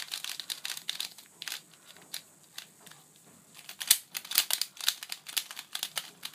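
Plastic pieces of a stickerless QiYi Pyraminx clacking and rattling as it is turned by hand. The turns come in quick, irregular strokes that grow busier and louder about four seconds in. The puzzle turns very smoothly, without a distinct click on each turn.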